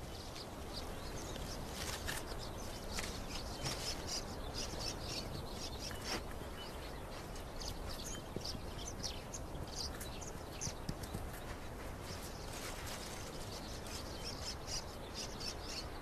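Birds chirping in short, high, scattered notes, over a faint steady background hiss.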